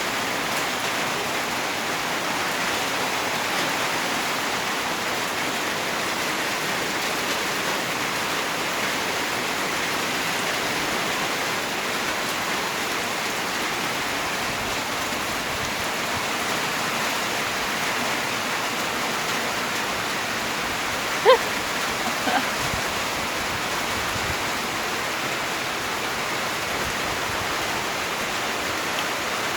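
Steady rain falling, an even unbroken hiss. About two-thirds of the way through, one brief louder sound cuts in, with a fainter one a second later.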